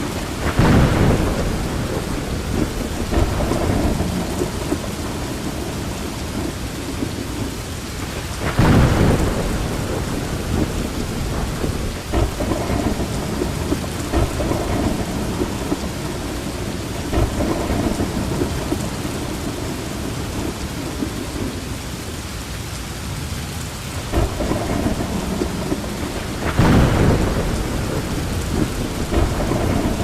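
Steady rain with thunder rumbling, swelling into three louder peals: just after the start, about nine seconds in, and near the end.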